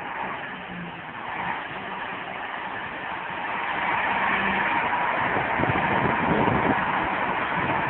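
A large articulated tractor's diesel engine working hard while its tyres churn and spin in deep mud. It grows louder about halfway through.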